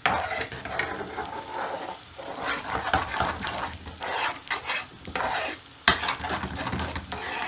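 A utensil stirring and scraping thick curry sauce around a pan in irregular strokes, with a sharp clack against the pan about six seconds in. The separated oil is being mixed back into the reduced sauce.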